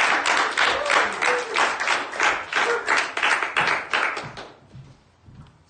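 A roomful of students clapping together in a quick, even beat, the claps dying away about four and a half seconds in.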